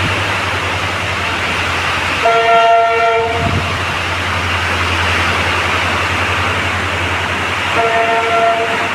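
Train horn sounding twice, each blast about a second long with several tones sounding together. It is heard over a steady rushing noise of heavy rain and a running train.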